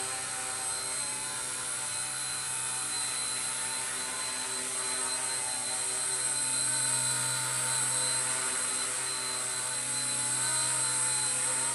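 Blade mCP X micro electric collective-pitch RC helicopter hovering: a steady whine of its motors and spinning rotor blades, wavering a little in pitch and slightly louder in the second half.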